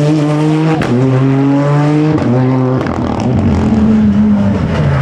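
Rally car engine at high revs, changing gear twice with a sharp crack at the first change. Near the end its pitch falls as it slows.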